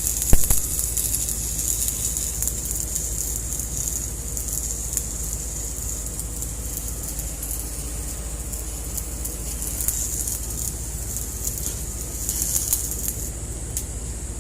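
Electric arc welding: a steady hiss with scattered crackles over a low hum, with one sharp click just after the start.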